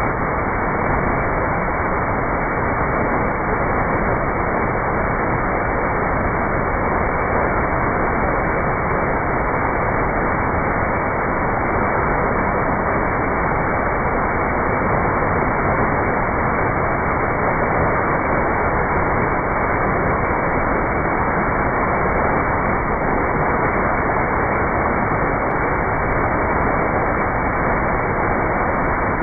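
Waterfall pouring down close by, a loud, steady rush of falling water.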